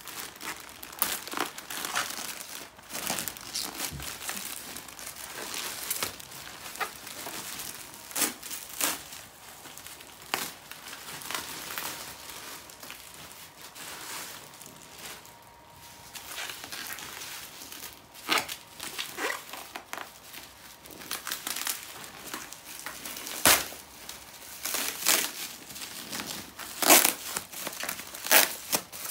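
Plastic courier mailer bag and bubble wrap being torn open and unwrapped by hand: continuous irregular crinkling and rustling of plastic, with sharper crackles and tearing, the loudest few in the last several seconds.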